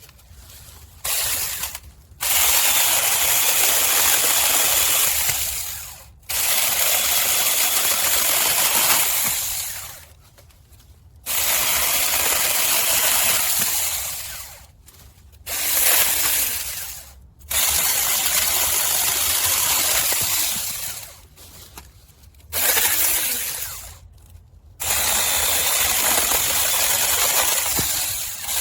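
Saker 6-inch cordless electric mini chainsaw run in repeated bursts of a few seconds, about seven times. Each burst starts abruptly as the trigger is pulled and winds down as the chain coasts to a stop.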